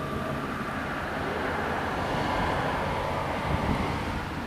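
Z 20900 double-deck electric multiple unit running on the line: a steady rumble of wheels and traction with a faint whine, with a brief louder knock about three and a half seconds in.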